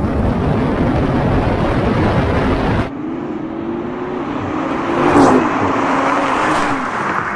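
Two turbocharged sports cars, a Toyota Supra straight-six and a Nissan GT-R V6, at full throttle in a drag race: first engine and wind noise from a camera mounted on the Supra's body, then, after an abrupt cut, both engines approaching and rising in pitch through the gears, loudest as the cars rush past about five seconds in.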